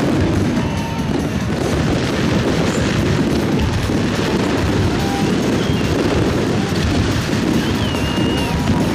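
Fireworks display: a dense, unbroken barrage of aerial shell bursts booming and crackling, with a few short whistling glides heard above it.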